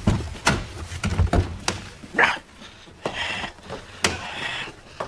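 Knocks and low thumps of people shifting around inside a car to swap seats, mostly in the first second and a half, with a sharp knock about four seconds in and a few brief vocal noises.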